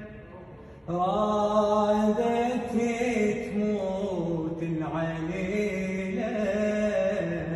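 Slow, sad chanted singing by a solo voice in Arabic, long held notes that slide from one pitch to the next. The voice drops away at the start and comes back in about a second in.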